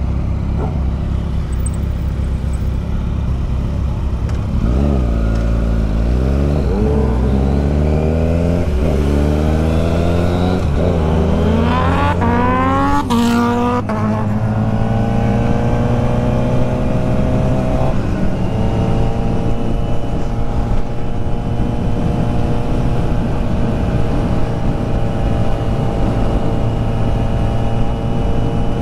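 Kawasaki Z900's inline-four engine pulling away and accelerating through several quick upshifts: the pitch rises and drops back at each shift, every second or two. It then settles to a steady cruising note.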